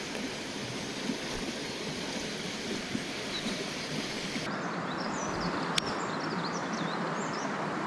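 Steady rush of flowing river water. About halfway through the sound changes, and faint short high chirps and a single sharp click come in over the water.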